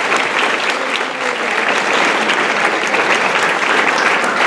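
A large audience of school pupils applauding: sustained, dense clapping with no break.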